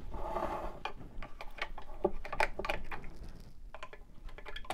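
Scattered clicks, taps and light knocks of hands handling an electric coffee percolator and plugging in its cord on a wooden board.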